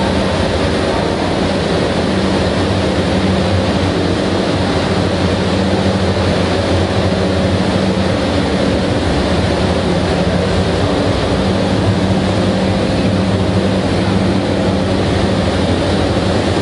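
Large machinery running steadily and loudly, a constant hum over a broad rushing noise, with no change in pitch or level.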